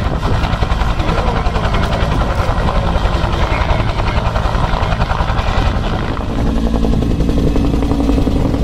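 Bell UH-1 Huey helicopter flying low past, its two-blade main rotor chopping in a fast, even rhythm over the engine's drone. A steadier hum joins in a little after six seconds.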